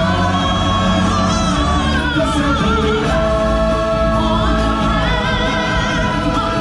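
Live stage-show music: a choir of voices singing sustained, wavering notes over loud instrumental backing.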